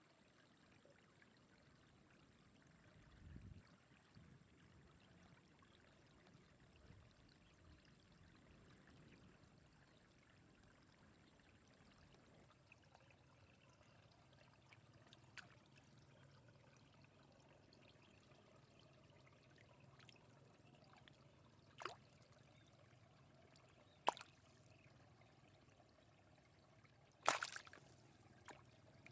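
Faint trickling water, with a few short sharp knocks or splashes in the second half, the loudest about two-thirds of the way through.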